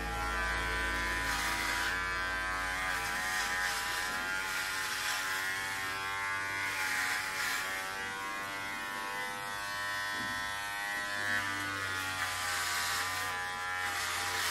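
Electric hair clipper buzzing steadily as it shaves a head close to the scalp, its pitch wavering slightly as the blades are pressed through the hair.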